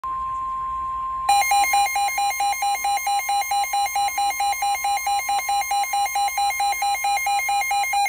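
Midland NOAA weather alert radio sounding a warning alarm for a severe thunderstorm warning: a steady single tone, then about a second in a loud, fast, even pulsing alarm beep, about five pulses a second, with the steady tone faint beneath it.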